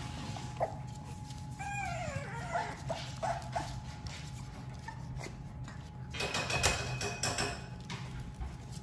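French bulldog puppies whining over background music: one whine falls in pitch about two seconds in, with short cries after it. A louder burst of noise comes about six seconds in.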